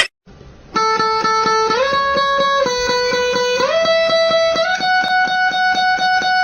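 Background music: after a short pause, a sustained guitar-like tone over a quick, even beat, stepping up in pitch a few times.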